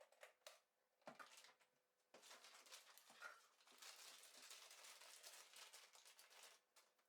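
Faint handling noise from fitting a chainsaw's bar and chain to its body: a few light clicks, then about four seconds of continuous rustling and scraping that stops near the end.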